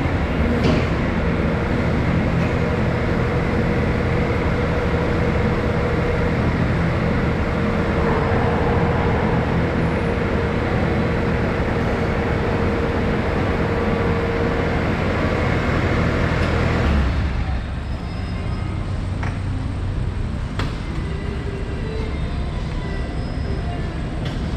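Bobcat S530 skid steer's diesel engine running hard, with a steady whine over it. About two-thirds of the way through it drops to a lower, quieter steady run.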